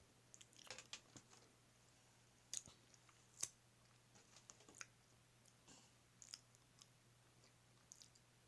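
Faint close-up eating sounds from a person chewing a chili-and-ketchup sausage dog: scattered wet mouth clicks and lip smacks at irregular intervals, the sharpest two about two and a half and three and a half seconds in, over a low steady hum.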